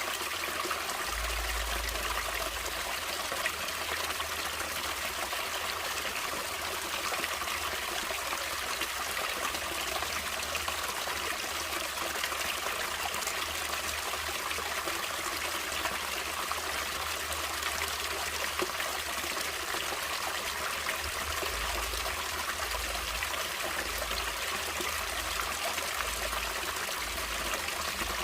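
Natural running water flowing and splashing steadily, a continuous even rush without pauses.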